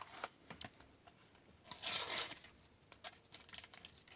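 A paper sticker pack torn open in one short rip about two seconds in. Light clicks of stickers being handled come before and after it.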